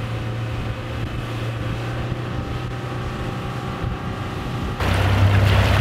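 Outboard motor running at speed as the boat planes across the lake, a steady engine hum mixed with wind noise on the microphone and rushing water. Near the end the sound jumps suddenly to a louder wind and water rush over the engine.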